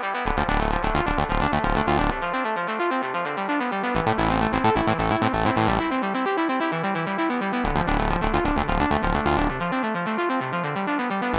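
Electronic trance-style music with synthesizer, its bass line dropping out and returning about every two seconds.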